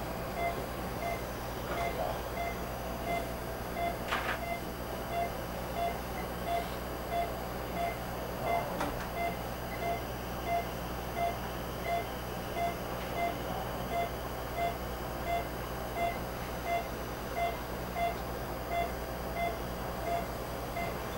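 Patient monitor's pulse-oximeter tone beeping steadily at about one short beep every 0.8 s, pacing the patient's heartbeat, over a steady equipment hum. A brief click sounds about four seconds in and another about nine seconds in.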